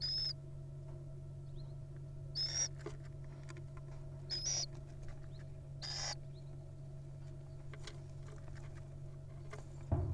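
Little owls in a nest box giving short, high, raspy calls, four of them about two seconds apart, over a steady low hum. A knock sounds near the end.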